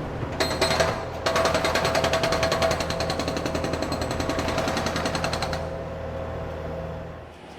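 Loader's diesel engine running under a rapid, even metallic rattle of about ten knocks a second that lasts several seconds and then stops. The engine sound cuts off near the end.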